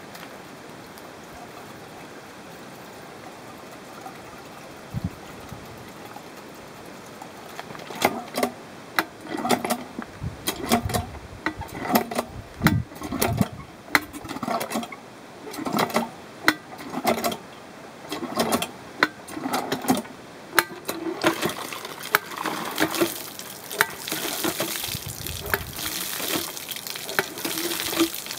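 Metal bore hand pump being worked by its handle: repeated clanking strokes, about one a second, start about eight seconds in. After about twenty seconds water begins gushing from the spout and splashing, while the pumping goes on.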